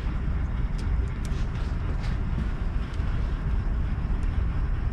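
Steady low rumble of background noise, with a few faint metallic clicks of a timing chain being laced around the cam sprockets.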